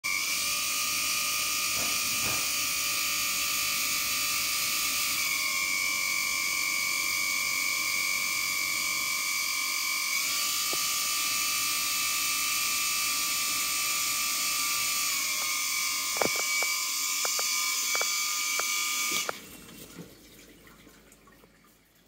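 LG dishwasher running with a loud, steady high-pitched whine over a hiss, the whine stepping slightly in pitch about every five seconds. A few sharp clicks come near the end, then the whine cuts off suddenly as the door is opened, leaving only faint dripping.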